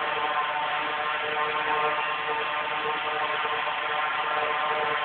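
Quadcopter's electric motors and propellers spinning steadily, a constant whir with a strong steady hum.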